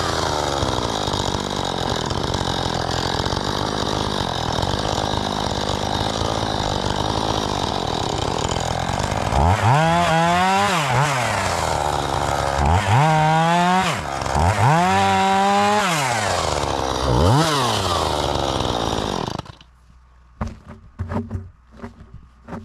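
Chainsaw running steadily at high speed, then revving up and down four times before shutting off abruptly near the end; a few faint knocks follow.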